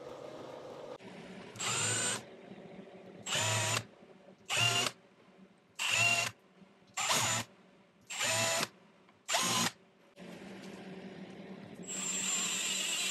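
Milling-machine spindle cutting metal in seven short bursts, about one every second and a quarter, as a countersink is plunged into hole after hole. Near the end a louder steady machining sound begins as a hole is tapped.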